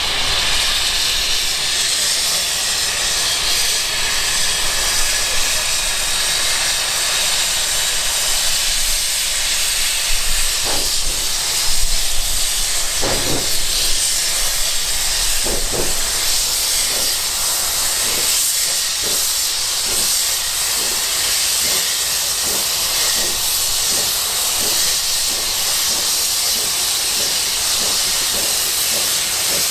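Steam hissing steadily from the open cylinder drain cocks of a George England narrow-gauge saddle-tank steam locomotive as it moves off. From about a third of the way in, soft exhaust chuffs come through the hiss.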